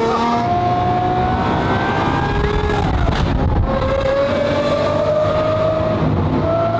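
Lamborghini engine running under way. Its note dips about three and a half seconds in, then slowly climbs again.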